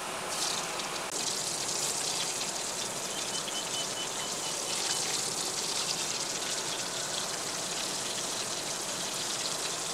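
Kola urundai (meatballs) deep-frying in a pan of hot oil: a steady sizzle with fine crackling.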